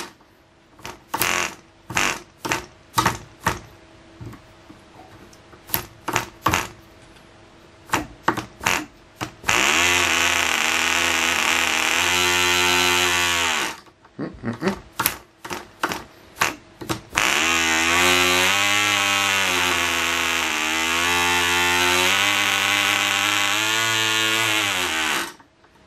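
Clan 0.24 cc side-port model diesel engine being flicked over by hand and firing in single pops, then running twice: about four seconds, and then about eight seconds with its pitch sagging and rising as the compression is adjusted, before it stops suddenly near the end. With its intake timing corrected it now runs, but it is very sensitive to the compression setting.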